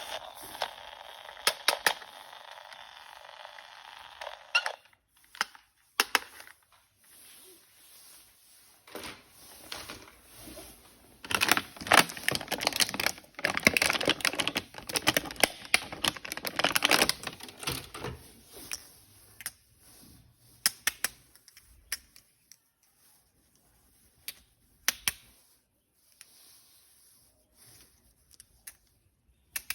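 Sharp plastic clicks and rattles from toy guns being handled and unpacked, coming thick and fast in a run of several seconds in the middle, sparse elsewhere. For the first four seconds or so there is a steady rushing noise.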